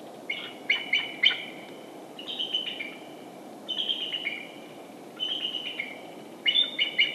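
A songbird singing a string of short chirping phrases, about one every second and a half, five times, over a faint steady background hiss.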